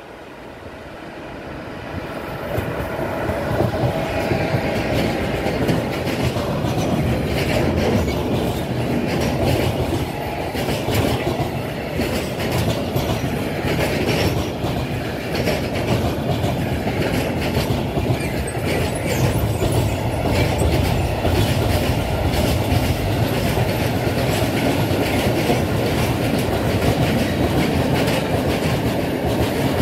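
A long freight train of covered wagons and tank wagons passing close by on the near track. The sound swells quickly over the first few seconds as the train arrives, then holds as a steady rumble with the clatter of wheels over the rails.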